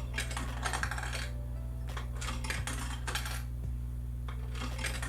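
Three dimes inserted one after another into a mechanical Lego vending machine, each clattering and rattling down through the plastic-brick coin mechanism.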